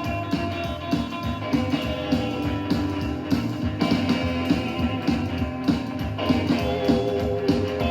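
Psychobilly rock music with no vocals: electric guitar over a steady beat of bass and drums, playing from a vinyl 45 rpm single.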